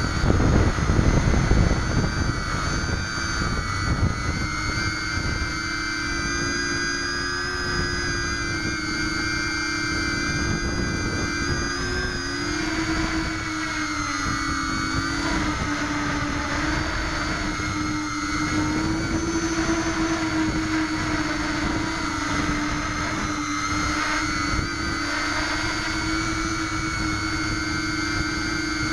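Brushless motors and propellers of a small quadcopter, heard from on board: a steady whine that wavers up and down in pitch as the throttle changes. There is a heavy low rumble in the first two seconds as it lifts off.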